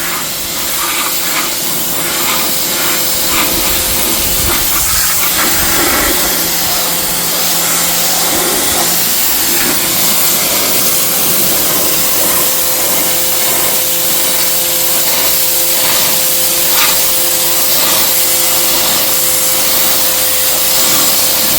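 Pressure washer jet spraying a roof to strip black algae: a steady, loud hiss of water on the roof surface, with a steady hum underneath.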